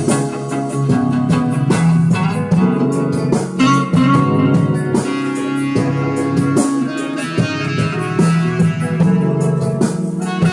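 Instrumental music from a song, with no singing: a run of plucked notes over sustained low bass notes.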